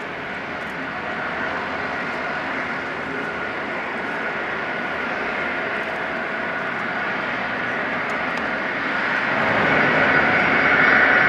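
Boeing 747-200F's four jet engines running as the freighter rolls along the runway after landing. It is a steady rush with a whine, growing louder about nine seconds in.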